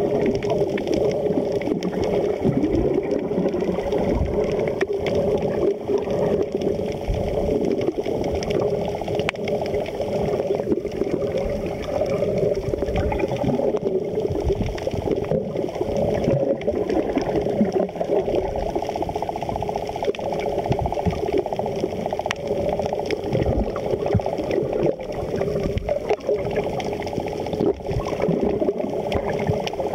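Muffled underwater sound picked up by a snorkeler's submerged camera: a steady low rushing of water with faint clicks and crackles.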